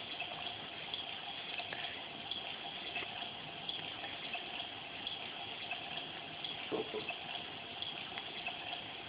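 Steady rushing hiss with a few faint ticks and one brief, soft sound about seven seconds in.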